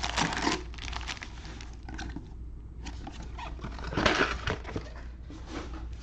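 Plastic wrappers of trading-card packs crinkling and rustling as the packs are handled and opened, with a louder burst of crinkling about four seconds in.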